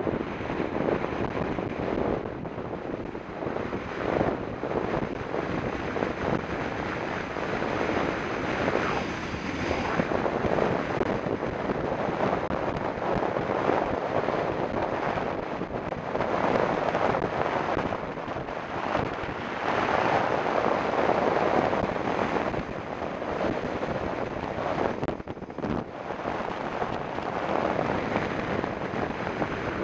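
Wind rushing over the camera microphone of a mountain bike descending a paved road at speed: a steady rush of noise that swells and fades.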